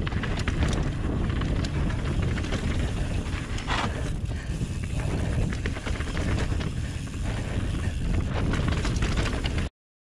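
Hope Pro 4 rear hub freewheeling as a mountain bike coasts downhill, its pawls buzzing under heavy wind rumble on the GoPro microphone, tyre noise on dirt and the rider's breathing. The sound cuts off abruptly near the end.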